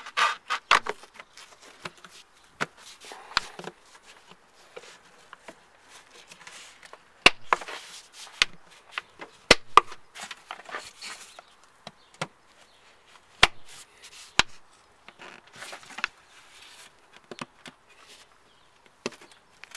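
Plastic air filter housing lid being worked back into place on a car engine: scattered sharp clicks and knocks of plastic on plastic, with rubbing and scraping from gloved hands.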